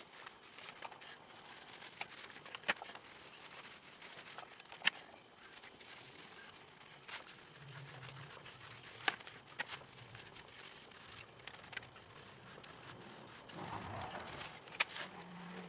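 Small foam paint roller rolling glue onto plywood: a quiet, sticky rubbing hiss that comes and goes with the strokes, with a few sharp clicks scattered through.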